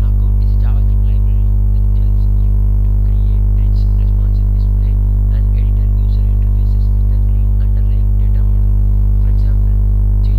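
Loud, steady electrical mains hum with a stack of overtones, unchanging throughout and drowning the recording.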